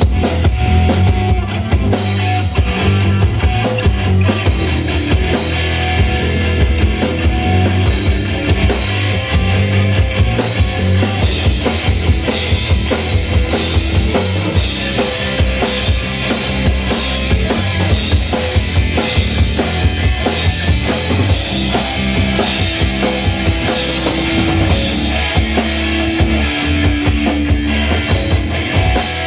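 A live rock band playing loudly: a drum kit with bass drum and snare hits driving a steady beat under electric guitar and bass.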